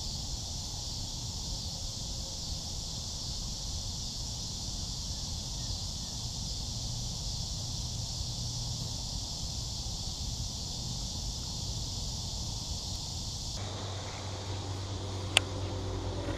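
A steady, high, even insect chorus over outdoor ambience. It cuts off abruptly near the end, giving way to a low hum and a single sharp click.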